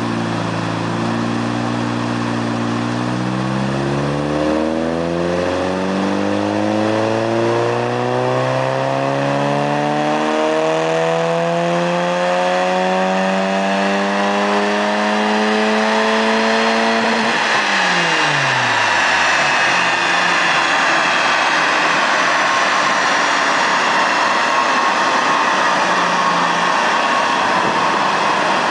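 Honda Civic EK's engine making a full-throttle pull on a chassis dynamometer: the revs climb steadily for about seventeen seconds, then the throttle closes and the revs fall away quickly. A high whine carries on after the lift-off, slowly falling in pitch as the wheels and dyno roller spin down.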